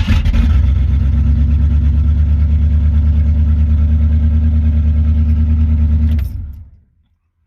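A car engine running at a steady idle with a fast, even pulse, switched off about six seconds in and dying away within a second.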